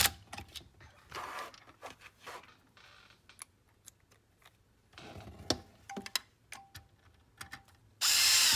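Cordless drill with a long quarter-inch nut driver running screws into a Kodak 760H slide projector's cord storage cover. It gives one short burst of under a second near the end, amid light clicks and clatter of the tool and metal parts being handled.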